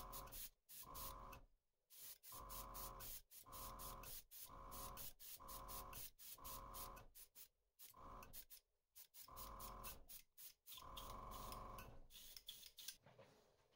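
Gravity-feed airbrush spraying pearlized silver paint in short bursts, about one a second: a faint hiss with a steady whistle in it, cutting off between bursts as the trigger is let go. Near the end the bursts turn fainter and more irregular.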